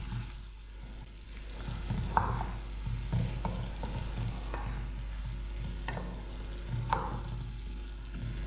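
Wooden spatula stirring barnyard millet into simmering water and vegetables in a stainless steel pan, scraping, with a few light knocks of the spatula against the pan.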